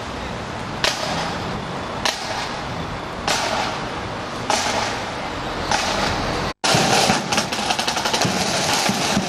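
Marching band side drums striking a slow single beat, one sharp hit about every second and a quarter. After a brief break about two-thirds of the way through, the drums play a faster, denser rhythm.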